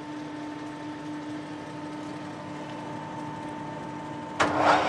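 Colchester Master 2500 lathe: a steady hum while the chuck is stopped, then near the end the spindle is started and the headstock gearing comes up to speed with a sudden, much louder rush of gear noise. This is the headstock noise under investigation, with the leadscrew engaged.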